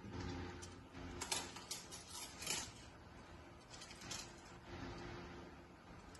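Light clicks and rattles of small plastic and metal parts being handled while fitting an acrylic diffuser and washer onto an LED light fixture. A cluster of sharper clicks comes between about one and two and a half seconds in, and a few more around four seconds in.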